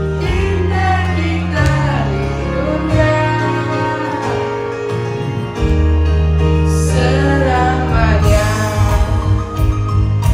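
A solo voice singing a song through a microphone over backing music that has sustained bass notes.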